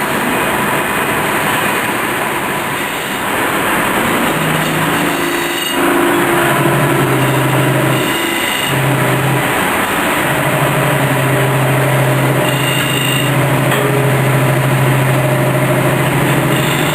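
Chainsaw running, carving wood. Its engine note holds mostly steady, with a couple of brief dips about eight and nine seconds in.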